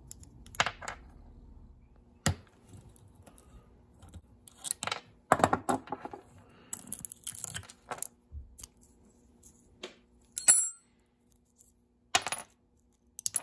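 Small steel parts of a Shimano 600 rear derailleur clicking and clinking as it is taken apart by hand: a removed pin and screw tapped and set down on a wooden bench. One sharp metallic tap about ten and a half seconds in rings briefly.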